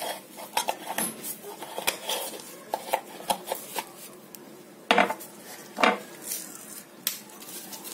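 Kitchen clinks and knocks as a measuring spoon and spice jars are handled and set down beside a glass mixing bowl: a scatter of light clicks, with two louder knocks about five and six seconds in.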